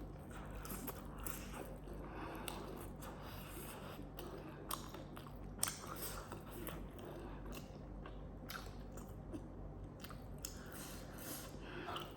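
A person chewing and biting food close to the microphone, with scattered short, sharp mouth clicks.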